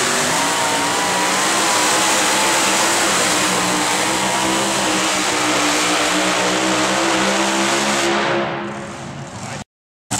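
The engine of a 6,200 lb two-wheel-drive super modified pulling truck runs at full throttle under heavy load as the truck drags the weight transfer sled. The note holds high and steady for about eight seconds, then dies away as the pull ends. The sound cuts off abruptly just before the end.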